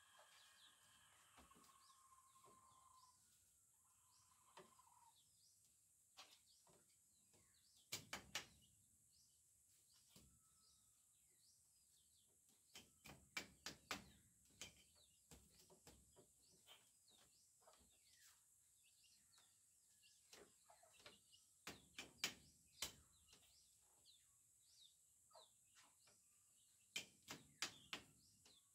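A hammer tapping where a woven bamboo wall panel meets its wooden frame, in sharp sets of three to six quick strikes a few seconds apart, as the panel is fixed in place. Faint bird chirps behind.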